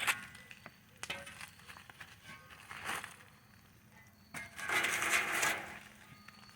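Campfire crackling with scattered sharp clicks, and a short burst of gritty scraping about five seconds in.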